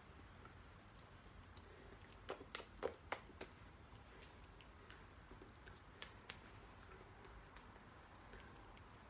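Near silence: room tone with a scattering of faint clicks and taps from a signer's hands and body moving as she signs, a cluster of them about two to three and a half seconds in and two more about six seconds in.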